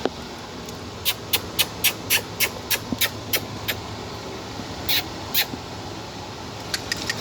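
A quick, even run of sharp clicks, about three or four a second, over a steady low background noise, followed a little later by two softer clicks.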